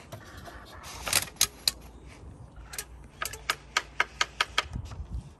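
Home-made wooden ratchet on a hand crank: the spring-loaded pawl clicking over the teeth of the plywood sawtooth wheel as the crank is turned. A few clicks about a second in, then a quicker run of about eight clicks, roughly four a second.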